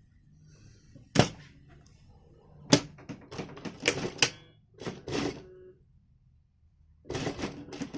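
A seam being unpicked on a pair of pants: irregular sharp clicks and snips of the stitching and sewing tools, one or two loud single clicks, then a quick run of clicks near the end.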